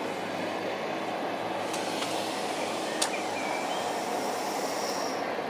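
A steady low rumbling noise, with one sharp click about three seconds in and a faint short chirp just after it.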